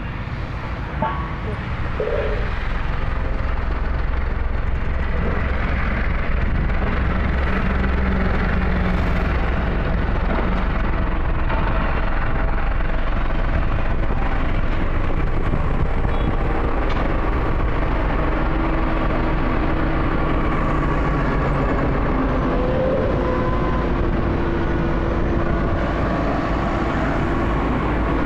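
Road roller's diesel engine running steadily as the machine rolls, a deep rumble with a constant engine drone. It gets louder about two seconds in and holds there.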